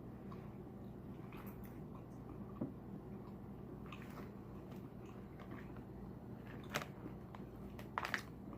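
Close-up eating sounds of seafood: quiet chewing and mouth smacking with scattered short clicks, a few sharper ones near the end.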